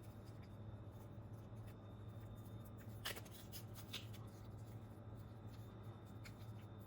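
Faint scraping and rubbing as a plastic brush-cleaning tool is slid along a Roomba's bristle main brush to strip off tangled hair, with a couple of sharper clicks about three and four seconds in, over a low steady hum.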